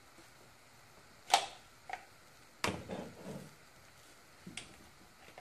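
Pliers clicking and knocking against a crisscross spring hose clamp and the parts around it in an engine bay: a few sharp clicks spread over several seconds, the loudest about a second and a half in.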